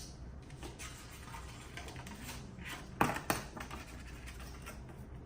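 Soft rustling and scraping handling noises, with two sharp knocks close together about three seconds in.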